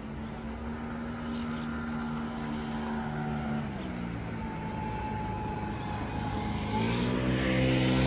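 An engine running steadily, its pitch dropping about halfway through and rising again near the end as it grows louder, with a rushing hiss as it comes closest.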